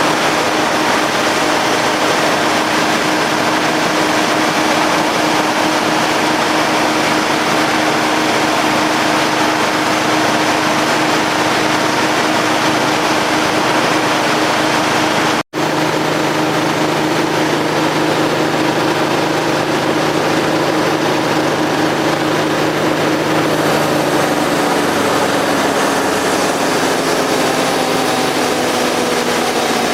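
Demuth DPM mobile drum chipper running steadily, driven through a PTO shaft by a Massey Ferguson tractor, a loud, even machine drone with a steady hum in it. Near the end the pitch falls steadily as the machine winds down.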